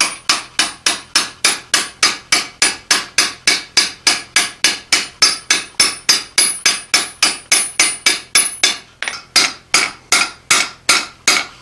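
Hand hammer striking the top arm of a pivoted fullering jig on an anvil, with steady, even blows at about three to four a second, each with a short metallic ring. The jig is fullering a red-hot steel pipe.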